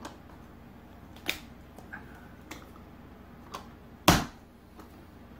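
Light plastic clicks and taps from a green plastic garlic mincer being handled, its lid and parts knocking against each other, with one much louder sharp smack about four seconds in.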